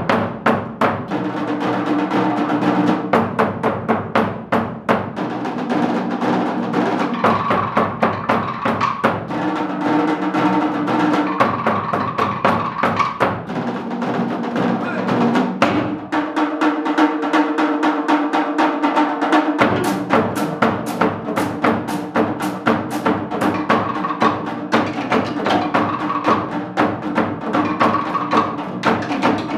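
Tahitian ote'a drumming: fast, unbroken rolling patterns on wooden to'ere slit drums over deeper drum strokes. The deep drum drops out for a few seconds past the middle, then comes back.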